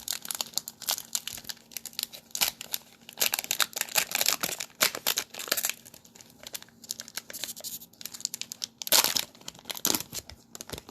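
Trading-card pack wrapper being crinkled and torn open by hand: a dense, irregular run of crackles, with a louder burst about nine seconds in.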